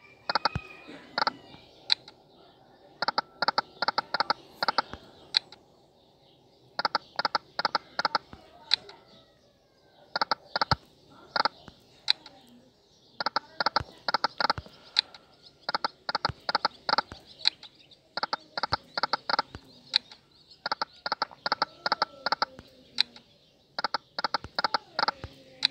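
5 Dazzling Hot online slot game's reel sound effects: rapid electronic ticking as the reels spin and stop. The ticking comes in bursts of a second or two, repeating every two to three seconds as one spin follows another.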